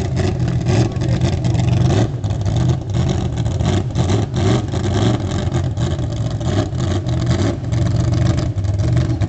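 Lifted mud-racing pickup truck's engine running loud, revving up and down as the truck waits at the start line and begins to creep forward.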